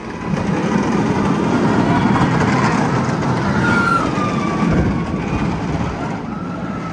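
Steel roller coaster train rumbling loudly along the track as it passes close overhead.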